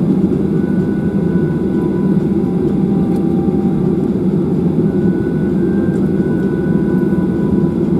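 Boeing 737-800's CFM56 jet engines running at low taxi power, heard from inside the cabin as a steady low rumble with faint whining tones that come and go.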